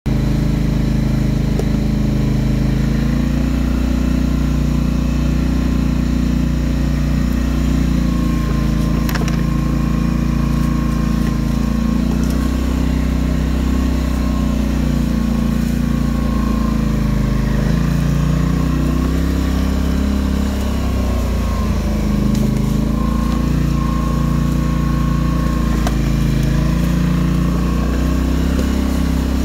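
Polaris Sportsman 850 ATV's parallel-twin engine running while the ATV rides over the forest floor, its pitch rising and falling a little with the throttle.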